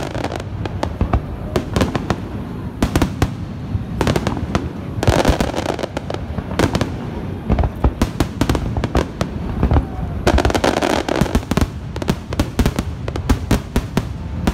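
Aerial fireworks display: shells bursting in rapid succession, with sharp bangs throughout and two denser stretches of crackling, about five seconds in and again around ten seconds in.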